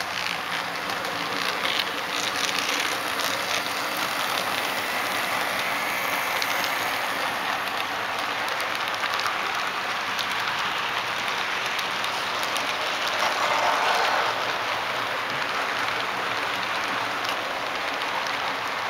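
HO scale model freight train rolling past close by, its metal wheels clattering on the track in a steady rush with many fine clicks.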